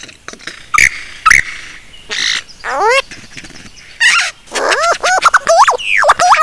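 Male superb lyrebird singing in its tail-fanned display. There are two sharp clicks about a second in, then harsh bursts and a quick run of falling whistled notes. It ends in a loud, rapid string of notes sweeping down and up.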